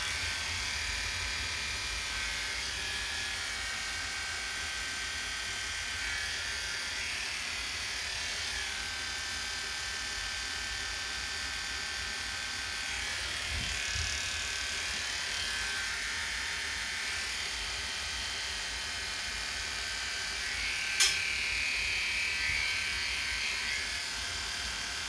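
Electric dog grooming clippers with a 40 blade running steadily, clipping a Bedlington terrier's ear against the grain. A sharp click sounds about 21 seconds in.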